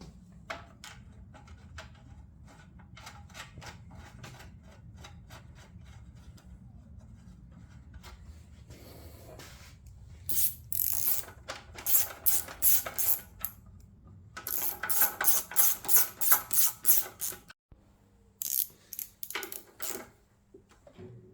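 Ratchet spanner clicking in quick runs of about four clicks a second while tightening the bolts that secure the fuel tank and carburettor to a Briggs and Stratton lawnmower engine, with fainter scattered ticks beforehand.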